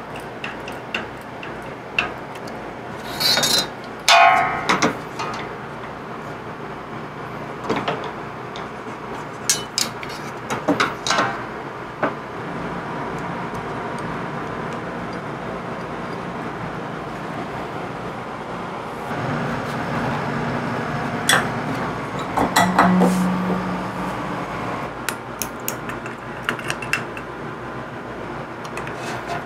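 Metal clicks, clinks and knocks of a T-handle hex key and bolts against aluminium CNC machine parts as bolts are fitted and tightened, scattered irregularly and loudest in two clusters, over a steady background hum.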